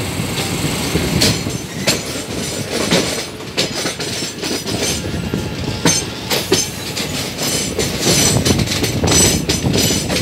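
Deccan Queen express rolling slowly out of the station, heard from an open coach door: wheels knocking irregularly over rail joints and points over a steady running rumble. A high wheel squeal rises over it about eight seconds in.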